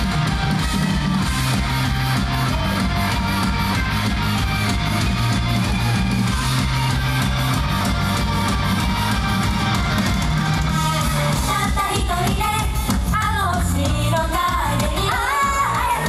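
Live idol pop song: a steady beat and bass line with a female singing voice, which stands out clearly in the last few seconds.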